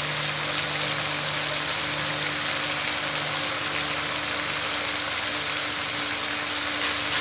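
Masala paste of ginger-chilli, turmeric and tomato purée sizzling steadily in hot oil in a frying pan, cumin powder just sprinkled on top: the spice base being fried down. A faint steady hum runs underneath.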